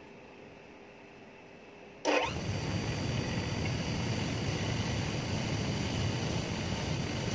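Motor-driven wire wheel brush scrubbing rust off the steel barrel and chisel of a pneumatic chipping hammer. It is quiet at first, then turns suddenly loud about two seconds in and stays a steady, dense scratching whir.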